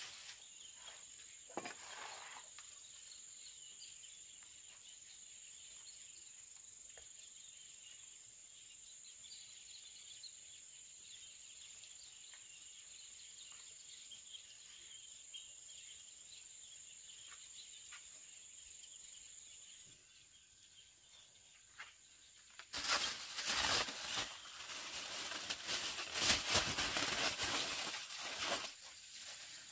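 An insect trilling steadily at a single high pitch, stopping about two-thirds of the way through. Near the end comes a few seconds of loud rustling and scraping.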